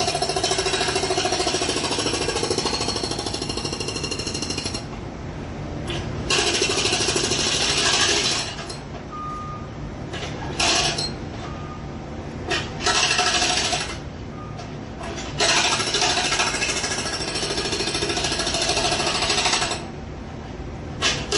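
Jackhammer hammering in bursts of rapid blows: two long runs of several seconds each, with shorter runs and brief blips between, and quieter gaps where the hammering stops.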